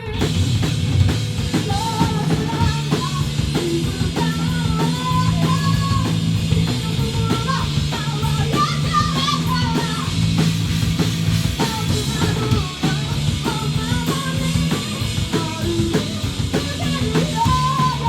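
Three-piece rock band playing live at full volume: drum kit, guitar and bass, with a wavering melody line riding on top. The band comes in together sharply at the very start and keeps going steadily throughout.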